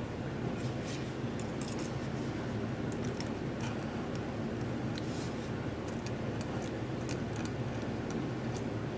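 Steel quill pen nib scratching lightly across glass as fine lines of enamel are drawn: many short, faint, sharp scratches over a steady low hum.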